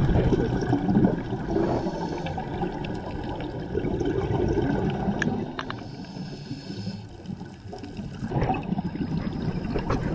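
Scuba divers' exhaled breath bubbling out of their regulators underwater, a gurgling rush of bubbles that swells and fades in surges with each breath.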